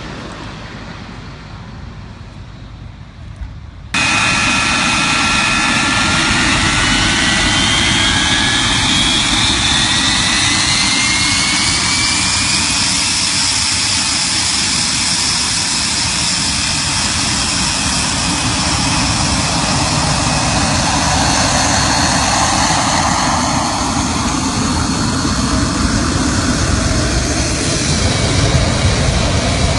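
Fighter jet engine noise. A fading jet roar cuts off abruptly about four seconds in and gives way to a loud jet roar whose whines rise in pitch as the engine spools up. It then runs loud and steady.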